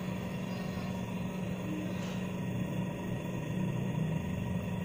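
Steady low hum of a Chirana Venar Libera ventilator running during its 5-litre gas flow check.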